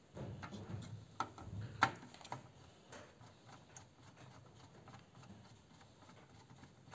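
Hands working on a DVR's opened metal case: a low rustle of handling with a few sharp clicks and taps of a screwdriver and parts against the metal, the loudest about two seconds in, then only faint scattered ticks.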